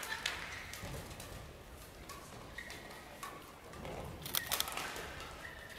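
Badminton rally: a shuttlecock struck back and forth by rackets in sharp cracks, with a quick burst of hits and taps near the end. Shoes squeak briefly on the court floor in between.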